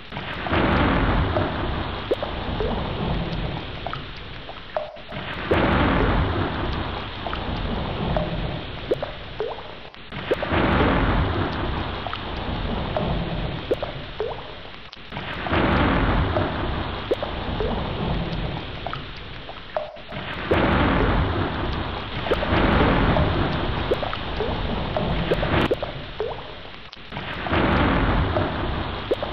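Thunderstorm: heavy rain falling steadily with rumbles of thunder. The sound swells loud roughly every five seconds and then eases off.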